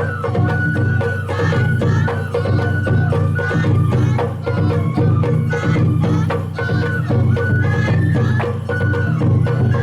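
Sawara bayashi festival music played live: a high bamboo-flute melody of held and sliding notes over dense, rapid drum and percussion strokes.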